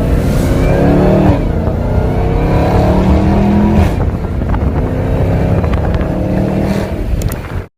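Supercharged 6.2-litre V8 of a 2021 Dodge Charger Hellcat Widebody with muffler-deleted exhaust, accelerating. The engine note climbs, drops back about a second in, holds steady, dips again and holds, then cuts off suddenly near the end.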